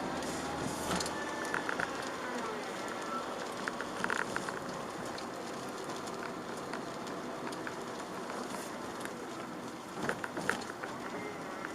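Chevrolet Aveo's 1.4 petrol engine and tyres running on a wet road, a steady hiss of road and rain noise with the engine note shifting slightly. Short bursts of light clicks or taps come a couple of times.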